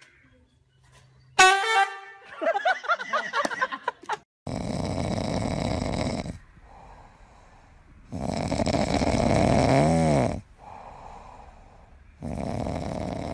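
A pet snoring loudly: long rasping breaths about every four seconds, each followed by a quieter breath. Before the snoring starts, a short high-pitched sound with wavering tones.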